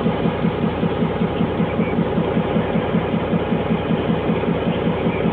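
Diesel engine of a Sri Lankan Railways Class S12 DMU power set idling, a steady low throb of about six beats a second.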